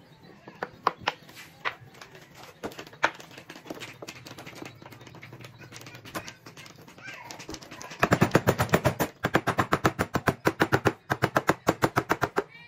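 Small claw hammer tapping quickly and evenly on a wooden end cap, driving it into a tube roller for a homemade belt sander. A few scattered handling knocks come first, and the fast run of taps starts about two-thirds of the way in.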